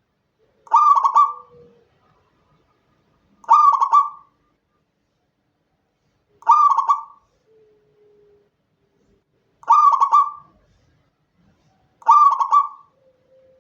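Zebra dove (perkutut) cooing: five short, rippling coo phrases at a steady pace, about one every three seconds.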